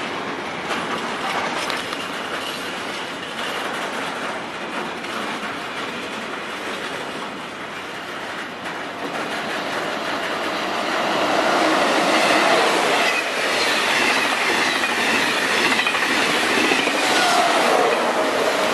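Intermodal container freight train's wagons rolling past on the track. About halfway through it gets louder and a wavering wheel squeal comes in over the rolling noise.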